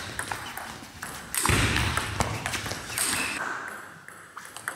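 Table tennis rally: the ball clicking sharply and quickly, back and forth, off the bats and the table. A louder rush of noise comes in about a second and a half in.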